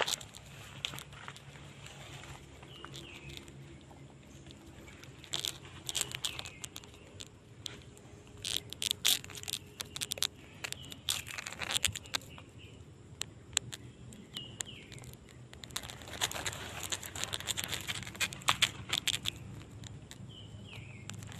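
Footsteps and rustling of leaves and branches as someone pushes through dense undergrowth, coming in irregular clusters of crackles, with a few short bird chirps in the background.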